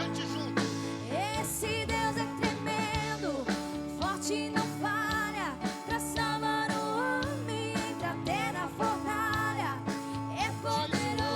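A song playing with a singing voice over instrumental backing.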